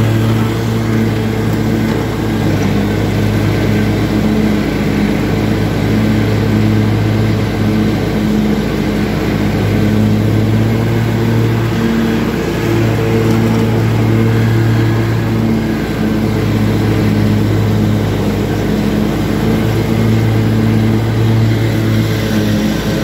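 Husqvarna lawn mower engine running steadily under load while cutting tall, overgrown grass, a continuous drone that swells and dips slightly.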